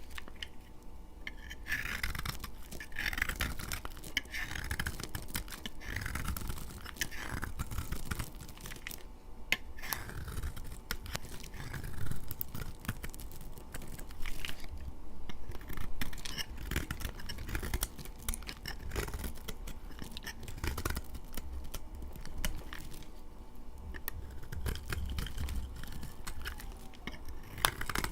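A blade cutting through dry laundry soap: repeated dry scraping strokes with many sharp crackling clicks, the loudest about 12 and 16 seconds in.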